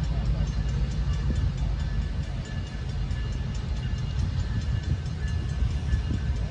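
Diesel locomotive running as it approaches slowly, a steady low rumble.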